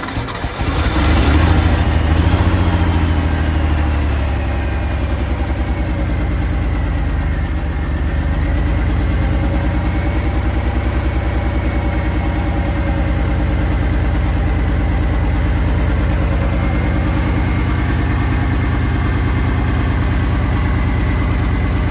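1987 Ford F-150 engine starting about a second in, revving briefly, then settling into a steady idle. It keeps running on its own without the key held forward, which shows the new ignition switch has cured the stalling.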